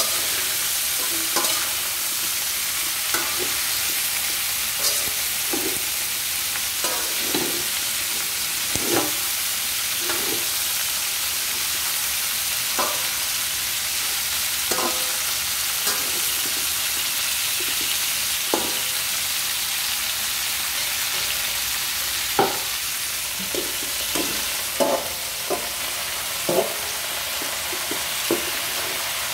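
String beans and ground pork sizzling in a hot metal wok with a steady frying hiss, stirred with a slotted metal spatula whose strokes scrape and clink against the pan every second or two.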